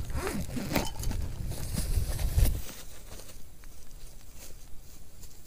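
Rustling and knocking of a backpack and nylon tent stuff sack being handled, with soft thumps and a louder thump about two and a half seconds in. After that it turns quieter, to faint rustles and footsteps on grass.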